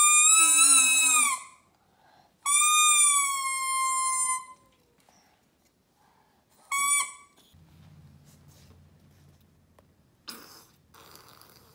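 Baby's plastic toy trumpet blown three times: a toot of about a second and a half, a longer one of about two seconds that sags slightly in pitch, then a short toot. Each is one high, buzzy note at about the same pitch.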